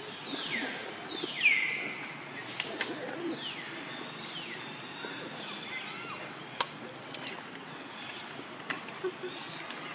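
Baby macaque crying in a string of high, falling squeals, the loudest about a second and a half in, then fainter calls. A few sharp clicks fall in between.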